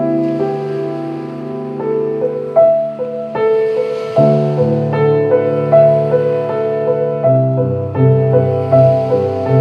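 Slow, gentle piano music: melody notes over held chords that change every two to three seconds.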